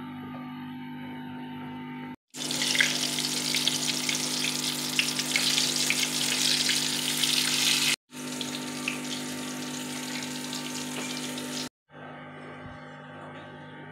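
Chicken wings deep-frying in hot oil in a kadai, a loud crackling sizzle that starts about two seconds in. After a brief break around eight seconds the sizzle carries on more quietly, then cuts off near twelve seconds. A steady low hum runs underneath.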